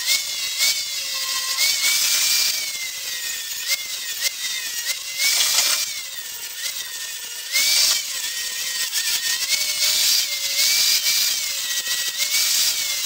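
Electric angle grinder running and grinding light paint off a steel plate to clean the joint for MIG welding. Its motor whine dips and recovers repeatedly as the disc is pressed onto the metal, with rushes of grinding hiss.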